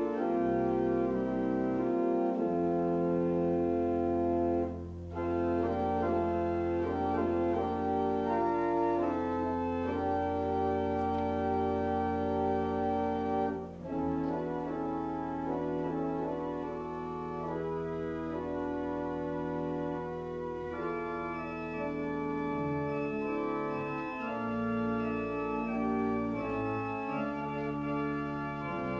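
Church organ playing slow, held chords over a deep pedal bass line, with two short breaks between phrases.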